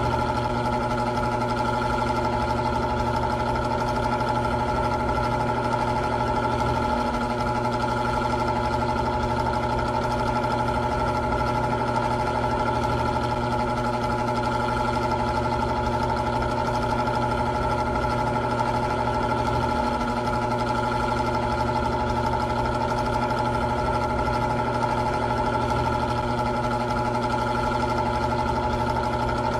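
Old electric fan running steadily, its motor humming on a few constant tones over the even whir of moving air.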